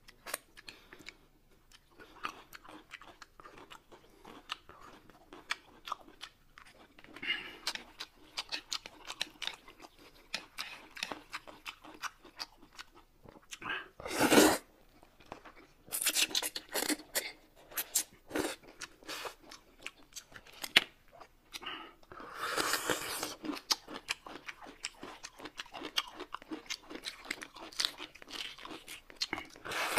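Close-up chewing and crunching of food, with many short wet clicks. About halfway through comes a loud slurp as a mouthful of noodles is sucked up, and a second, longer noisy stretch follows about three-quarters through.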